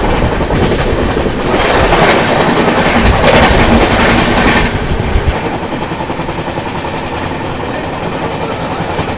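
Passenger train running at speed, heard out of the open side of the coach: wheels clattering over the rails with rushing air. For about three seconds near the start a train on the next track passes close by, the loudest part, then the steady run and clatter continue.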